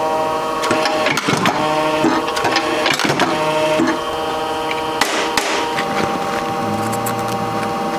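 Clicker die-cutting press at work: a run of rattling clatter and knocks over the first four seconds as the press head is swung over the steel die and brought down, then one sharp click about five seconds in.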